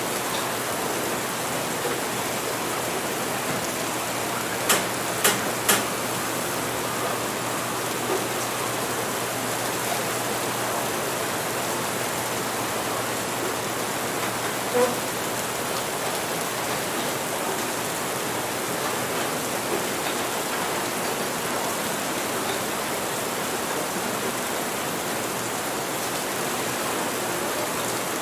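Steady rain, with three sharp clicks about half a second apart roughly five seconds in and a fainter single knock near the middle.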